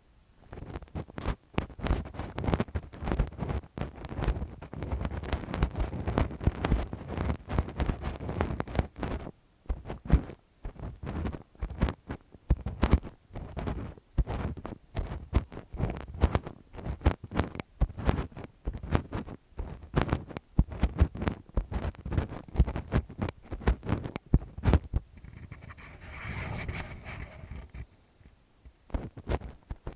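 Close-up ASMR ear-cleaning sounds: lace-gloved fingers rubbing and scratching right against the microphone, a dense, irregular crackle of scrapes and rubs with a couple of brief pauses.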